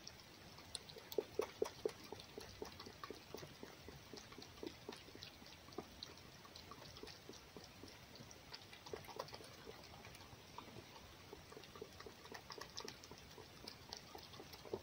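A fox eating egg from a hand: wet smacking and chewing clicks, irregular throughout, with a quick run of louder ones about a second in.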